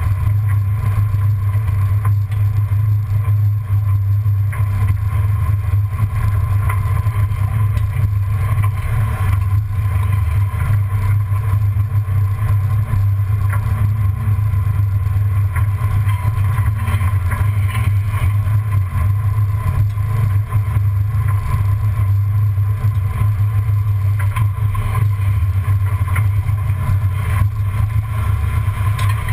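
A 1994 Ford Bronco driving slowly off-road, heard from beneath the chassis: a steady low drone of engine and drivetrain with faint scattered ticks.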